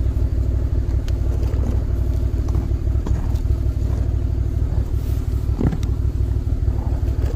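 A motor vehicle engine running steadily, a constant low rumble with a steady hum.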